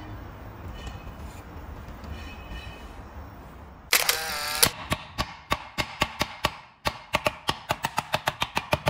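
A cloth-wrapped hammer knocks repeatedly on an LED high bay light in an impact test, sharp knocks that come faster and faster over the last few seconds. Just before the knocking starts there is a brief, loud, pitched sound.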